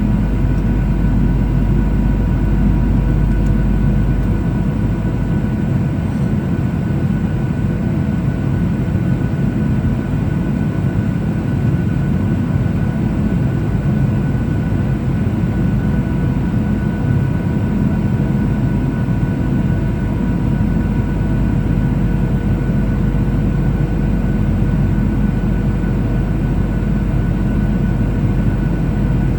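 Steady cabin noise of a Boeing 737-800 in flight: a dull roar of airflow and its CFM56 engines with a few faint steady whining tones. The deepest rumble eases about four seconds in.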